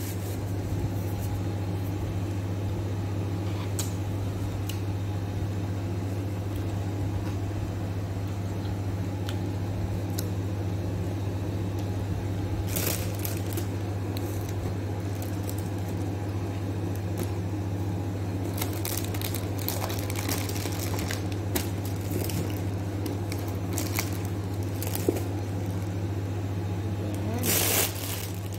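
A steady low hum, as from a running motor or appliance, with a few faint rustles and clicks at intervals.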